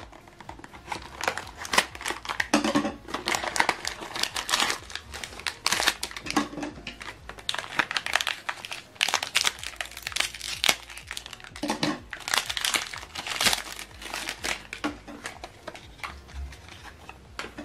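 Packaging crinkling and crumpling in the hands, with irregular crackles throughout, as an HP 65XL black ink cartridge is unwrapped from its pack.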